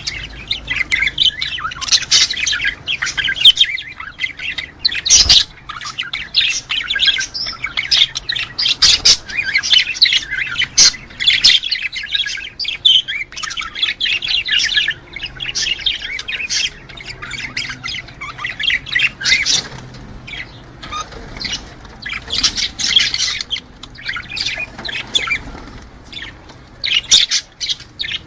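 Budgerigars chattering in a fast, near-continuous stream of high chirps, warbles and squawks with brief pauses: the budgie mating chatter played to bring budgies into breeding condition.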